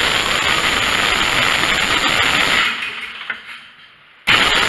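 Twin-cylinder gasoline engine of a Miller Legend 200LE welder-generator being started from its panel switch for a test run after new spark plugs, points, condenser and coil: it turns over for about three seconds, then dies away. A second start attempt begins suddenly near the end.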